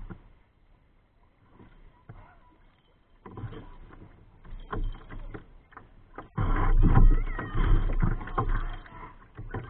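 Water sloshing against the plastic hull of a drifting kayak, with rumbling noise on the microphone. It is faint at first, picks up about three seconds in and grows loud past the middle.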